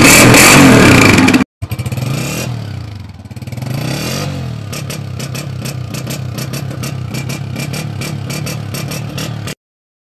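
Honda CG 125 single-cylinder four-stroke engine revving hard through a modified exhaust. It cuts out about a second and a half in. After that a CG 125 engine is revved up and down and then runs with an even ticking clatter, and the sound stops abruptly near the end.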